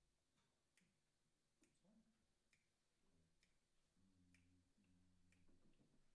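Near silence: room tone with faint ticks about once a second.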